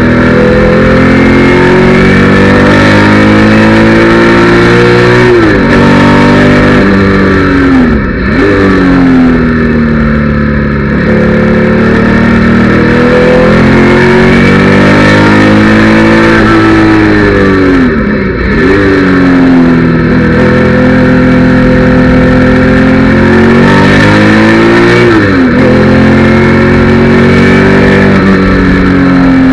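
Porsche 911 flat-six engine heard from inside the car, running hard at high revs on track. Its note drops sharply and climbs back again several times, around five, eight, eighteen and twenty-five seconds in, as it changes gear for corners.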